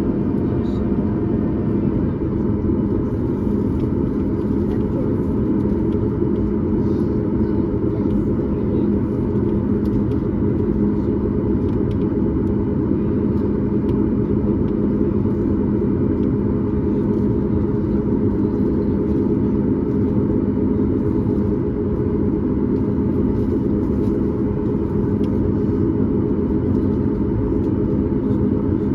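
Steady cabin noise of a Boeing 737 MAX 8 heard from a seat just behind the wing: a constant low rumble of engine and airflow with a steady hum, level throughout.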